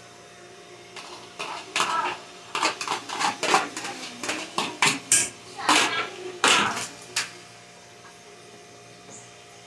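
A spoon scraping and knocking against a plastic bowl and the metal inner pot of an electric pressure cooker as food is scraped into the pot and stirred: a quick run of clatters and taps that starts about a second in and stops about two seconds before the end.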